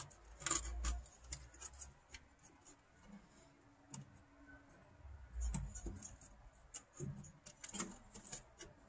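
Faint, scattered clicks and light metal taps of hand work on a windshield wiper linkage being connected to the wiper motor, with a few dull low thumps.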